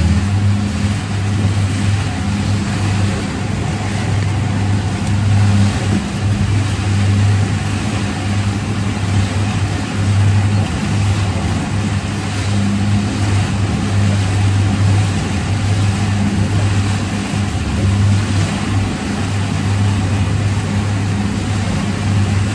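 An engine running steadily under load, a low, even hum with a constant rush of wind noise over it.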